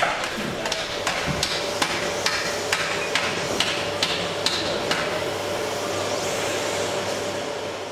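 Industrial vacuum cleaner running steadily with a whine as its hose nozzle is worked over a wooden panel. Sharp knocks come at an even pace, about twice a second, over the first five seconds.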